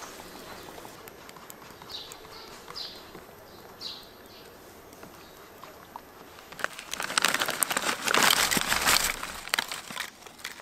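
Potato chips poured from a bag into a wooden bowl: a loud crackling rustle lasting about three seconds in the second half. A few short bird chirps come before it.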